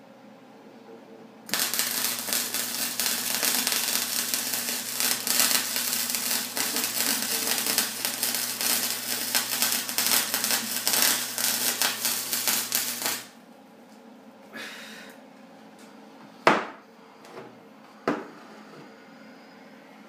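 Gasless flux-core wire welder arc on a snowmobile exhaust pipe: a steady, rapid crackling and sputtering that starts about a second and a half in, runs for about twelve seconds and cuts off abruptly. Afterwards a brief scraping rustle and two sharp knocks.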